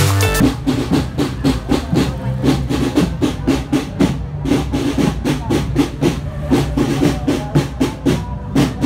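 A school marching drum band playing: bass drums and snare drums beating a quick, steady marching rhythm of several strikes a second.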